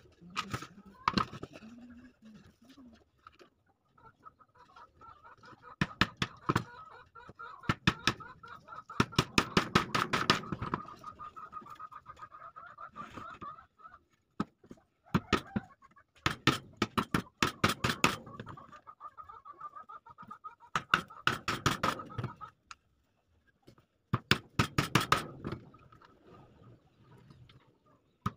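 Claw hammer driving small nails into a plywood shelf: several bursts of quick, light taps, with pauses between the bursts.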